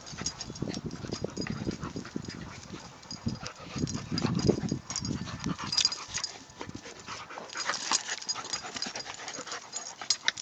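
A boxer and a Norwegian Elkhound/Keeshond puppy play-wrestling: short play growls, whimpers and panting in quick bursts, loudest about four to five seconds in, with scuffling on grass.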